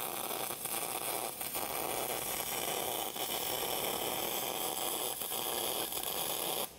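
MIG welding arc from a spool gun on a Lincoln Electric POWER MIG 255C, laying a bead on aluminium pipe with 100% argon shielding gas: a steady hiss. It cuts off sharply near the end as the arc stops.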